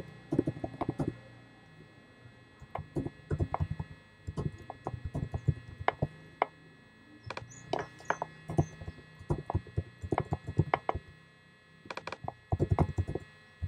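Computer keyboard typing: quick runs of keystroke clicks with short pauses between them, over a faint steady hum.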